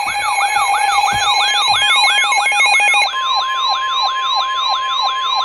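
Layered electronic alarm sirens wailing up and down in quick regular sweeps over steady alarm tones. About three seconds in the mix changes and a single steady tone, the NOAA Weather Radio warning alarm tone, sounds beneath the sweeps.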